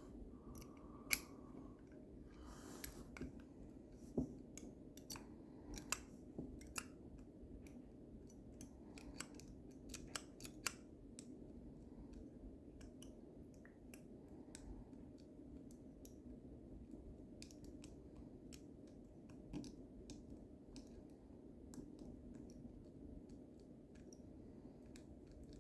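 Small metallic clicks and scrapes of a lever-lock pick and tension tool working the levers inside a lever lock, frequent for the first ten seconds or so and then only now and then, over a faint steady hum.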